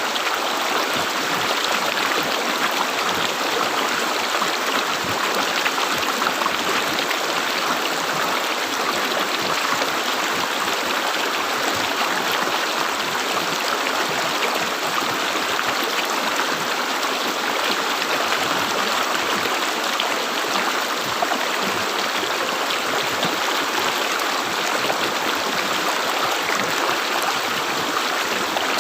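River water flowing and gurgling steadily: an even, unbroken rush of water.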